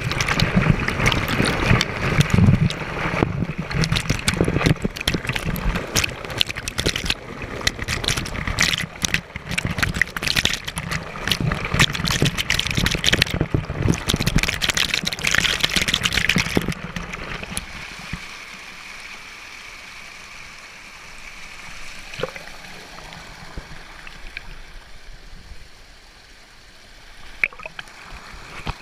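Water rushing and splashing at a waterfall, loud and choppy with many splashes, then dropping about two-thirds of the way through to a quieter, steady rush.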